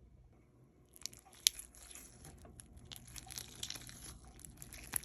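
Slime being squished and played with by hand, giving faint crackles and small clicks. They start about a second in, with one sharper click soon after.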